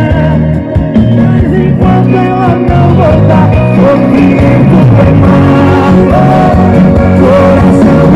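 Loud recorded music with a heavy, steady bass line under a wavering guitar-like melody, played through a Triton 400 loudspeaker.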